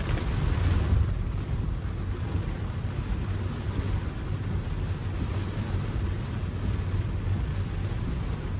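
Steady cabin noise of a Tesla Model 3 driving in the rain: tyres hissing on wet pavement over a low road rumble, with no engine note. It swells slightly about a second in.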